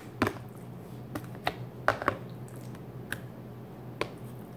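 Kitchen tongs clicking as they grip and turn raw chicken breasts on a plate: a handful of sharp, irregularly spaced clicks.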